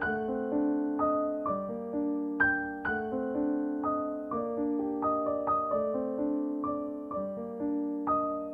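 Soft background piano music: single notes and chords struck a few times a second, each ringing and fading.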